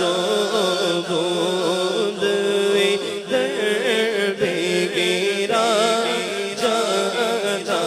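A male naat reciter singing an Urdu naat into a handheld microphone, drawing out long wavering notes in a slow, ornamented melody over a steady low drone.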